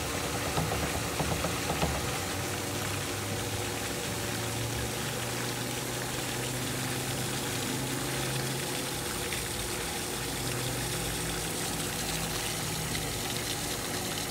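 Pool pump running steadily as the sand filter is backwashed, with water rushing through the multiport valve out to the waste line. A few light knocks in the first two seconds.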